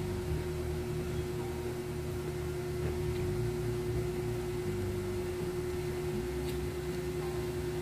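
A steady hum on one pitch, with faint chewing and mouth sounds from a person eating crab and rice by hand.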